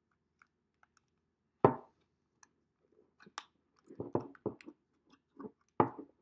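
Handling noise of a Zoom H4n Pro recorder being screwed onto a Movo stabilizer grip: scattered plastic clicks and taps, one sharp knock about a second and a half in, and a run of quick knocks and scrapes near the end.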